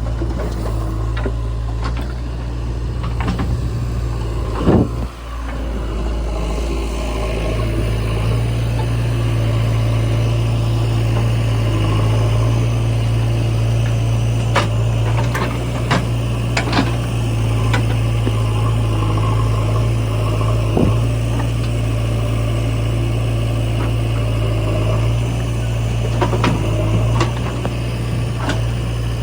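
Diesel engine of a JCB 3DX backhoe loader running steadily with a low drone while working, broken by occasional sharp knocks and clatters, the loudest about five seconds in.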